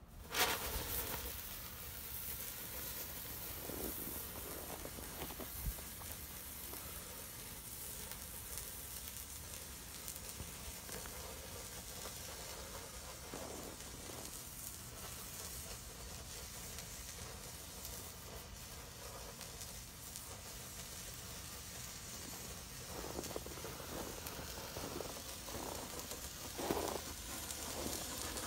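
A large homemade white flare of potassium nitrate, sulfur and flake aluminium catches about half a second in and burns with a steady hiss. A few brief louder knocks stand out in the hiss, the loudest near the end.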